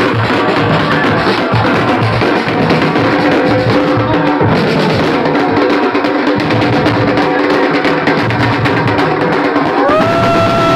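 Marching band playing in the street: snare and bass drums beating a busy, steady rhythm under held horn notes. Near the end a note slides up and is held.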